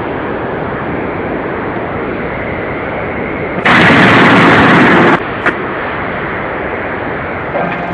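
Steady industrial noise from forging machinery. A few seconds in comes a loud burst of noise that starts and stops abruptly and lasts about a second and a half, followed by a short sharp knock.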